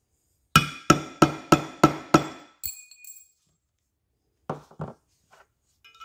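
Small hammer tapping in the spool-valve spring retaining pin on a small-block Chevy oil pump body: six quick metallic taps, about three a second, then a lighter clink. Two duller knocks follow a couple of seconds later.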